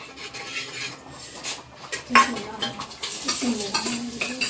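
Metal pots and kitchen utensils clattering, with a sharp ringing clank about two seconds in and several lighter clinks near the end.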